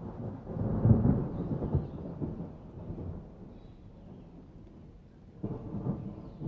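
Thunder rumbling: a crackling roll that swells within the first second and dies away over the next few seconds, then a second, shorter peal near the end.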